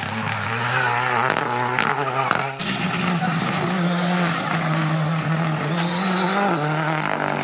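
Rally car engine running hard, its pitch stepping up and down several times as it shifts gears, with a few sharp cracks in the first couple of seconds.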